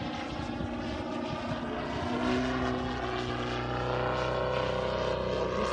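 Giant-scale radio-controlled Yak 54 aerobatic plane flying overhead, its Valach 420 petrol engine and propeller droning. The drone grows louder about two seconds in and holds a steady note.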